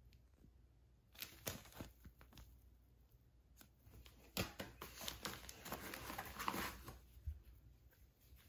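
A clear plastic zip bag crinkling and rustling as it is handled: a few short crackles a little after a second in, then a longer stretch of rustling from about four to seven seconds.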